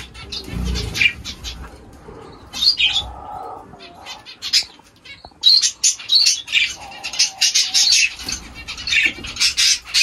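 A flock of small aviary birds chirping, the chirps thickest in the second half, with wings flapping. A dove coos briefly in the middle.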